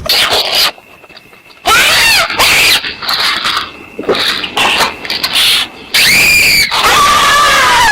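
A series of loud, shrill squealing cries, each rising and falling in pitch, with short pauses between them.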